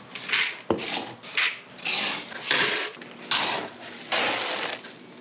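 Plastic scoop digging into pelleted horse feed in a bin and pouring the pellets out: a quick run of short rattling rushes, one per scoopful, with a light knock of the scoop under a second in.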